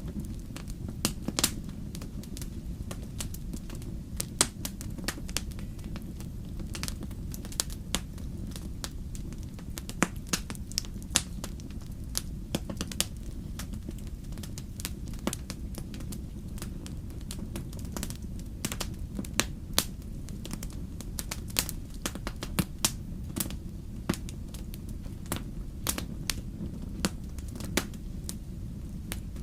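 Wood fire in a fireplace crackling, with irregular sharp pops and snaps several times a second over a steady low rumble of the flames.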